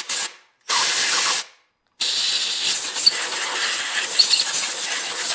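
Compressed-air blow gun hissing as it blows out freshly tapped exhaust bolt holes, clearing chips and cutting oil from the new threads: a short puff, a burst of under a second, then a long steady blast from about two seconds in.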